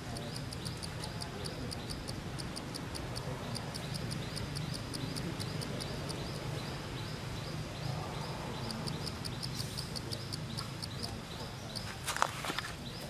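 Outdoor ambience: a rapid, evenly spaced high-pitched chirping, about five chirps a second, that pauses for a couple of seconds midway, over a steady low hum. A couple of sharp clicks come near the end.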